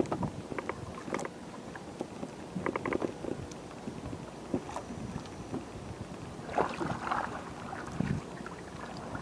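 Irregular wooden knocks and clicks on a small wooden outrigger boat as a fisherman moves about in the hull and handles gear, then a wooden paddle stroking the water near the end.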